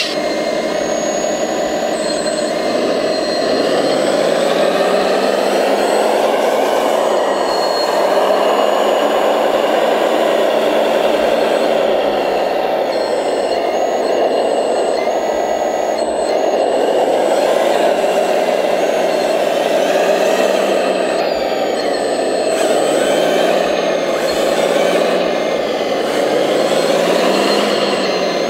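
Scale RC construction model at work: its electric drive motors and hydraulic pump whirring steadily, the pitch rising and falling every few seconds.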